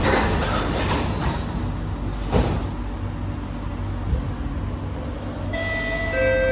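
SMRT C151B train doors sliding shut with a knock about two and a half seconds in. About five and a half seconds in, the train's electric traction drive starts up as it pulls away: a set of steady whining tones, one of them rising in pitch.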